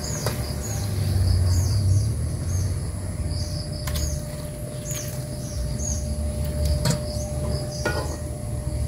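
Water poured from a metal kettle into a wok over a wood fire, a low noisy rush loudest about a second in. Insects chirp over it throughout, and a few sharp clicks of utensils come near the middle and end.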